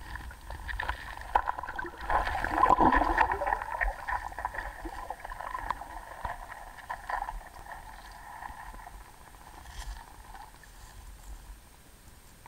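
Water swirling around a camera submerged in a creek, with scattered knocks and clicks. Loudest about two to four seconds in, then fading.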